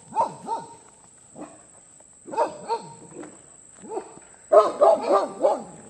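Dogs barking in short, scattered barks, then a quick run of several barks about four and a half seconds in.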